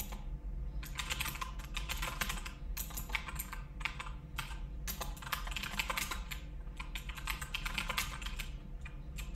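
Typing on a computer keyboard: runs of quick keystroke clicks with short pauses between them.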